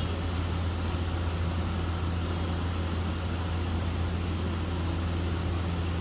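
Steady low machine hum over an even hiss, unchanging throughout.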